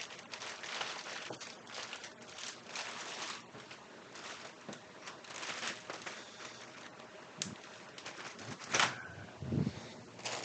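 Clear plastic zip-top bags crinkling and rustling as small parts are pushed back into a bag by hand, with a few sharp clicks. Near the end there is a sharp knock, followed by a short low thump.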